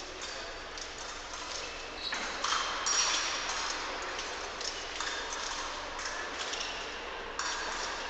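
An épée fencing bout: irregular light taps of the fencers' quick footwork on the piste, mixed with sharp metallic clinks of the blades touching, a few of them ringing briefly.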